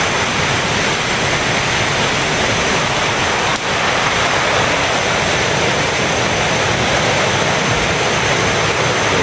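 Mountain river rushing over rocks: a loud, steady rush of water.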